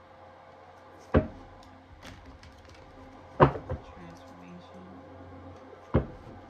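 Tarot cards being shuffled by hand, with three sharp knocks about two and a half seconds apart as the deck strikes the table or the hands.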